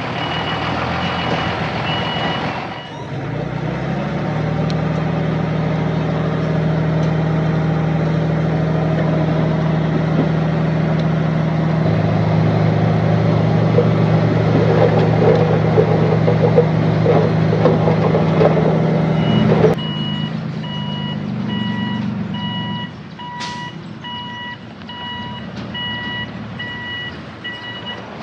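A dump truck's reversing alarm beeps in a steady pulse, then its engine runs hard under load with a rattle for about sixteen seconds. Near twenty seconds in the engine drops back and the reversing beeps return.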